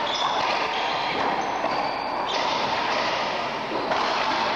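Steady hiss of the court recording, with one sharp knock about four seconds in as a racquet strikes a racquetball.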